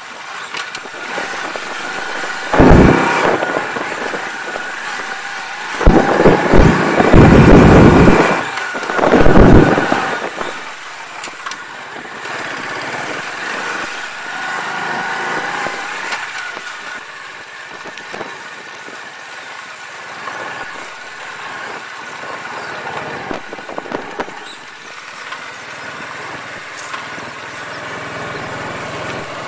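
Alpha moped's small single-cylinder four-stroke engine running steadily while riding over a rough dirt track. Loud rumbling buffets of wind on the microphone come about 3 s in and again from about 6 to 10 s in.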